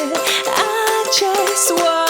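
Background music: an upbeat tune with plucked strings, likely ukulele, over a regular beat.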